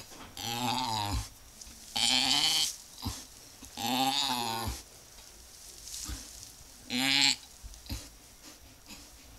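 Ewe in labor, her lamb partly delivered, bleating four times in wavering calls, the last one short.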